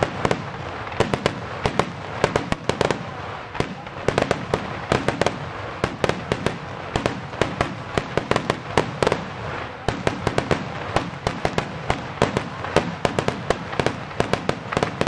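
Finale starmine fireworks barrage: shells launching and bursting in quick succession, several sharp bangs a second with no pause between them.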